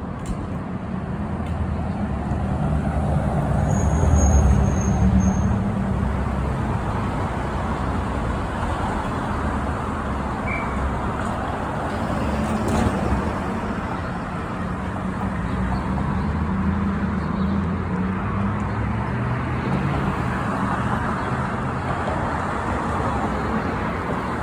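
Interior ride noise of an Orion diesel city bus: the engine hum swells and eases as the bus pulls away and cruises, mixed with road noise and the bus's loud cooling noise. A brief high squeal sounds about four seconds in, at the loudest moment.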